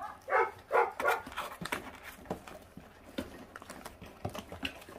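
Four-week-old puppies feeding on raw meat: one gives two quick yaps about half a second in, then chewing and tearing at the meat, with many small wet clicks.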